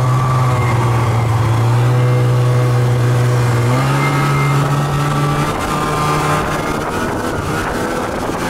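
Snowmobile engine running at steady speed under way, its note rising a little about halfway through and settling back down a few seconds later.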